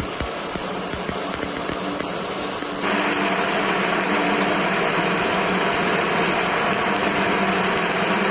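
Stick-welding arc crackling and hissing steadily over a low machine hum, growing louder about three seconds in.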